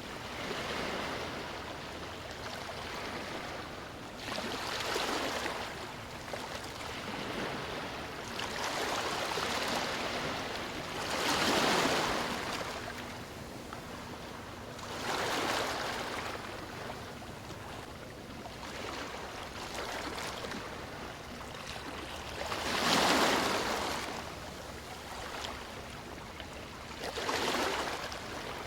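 Sea waves washing onto a beach: a steady hiss of surf that swells as each wave breaks every few seconds, with the biggest breakers about a third of the way in and again near the end.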